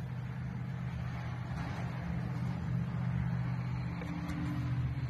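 Steady low mechanical hum of a running motor.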